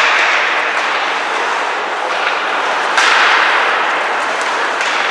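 Ice hockey play in an arena: two sharp hits about three seconds apart, likely the puck or players striking the boards, each followed by a rush of noise that slowly fades.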